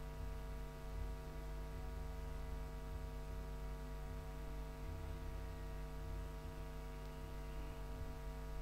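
Steady electrical mains hum with many evenly spaced overtones over a low rumble, unchanging throughout.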